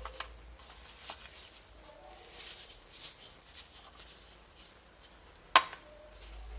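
Soft rustling of plastic film being handled over a small glass, with a few light clicks and one short, sharp tap about five and a half seconds in, the loudest sound.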